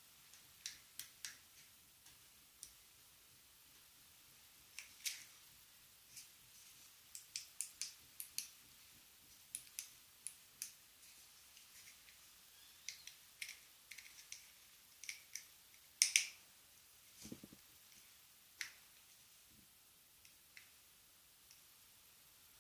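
Small sharp clicks and taps of a car-alarm key fob's plastic case parts being handled and fitted together, coming irregularly, a few dozen in all, with one duller knock a little past the middle.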